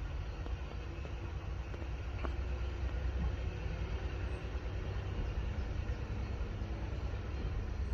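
Diesel multiple unit's engines running low and steady as the railcar moves slowly closer, growing slightly louder.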